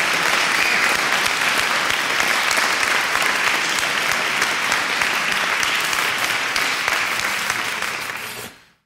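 A crowd applauding, a steady dense clapping that fades out quickly near the end.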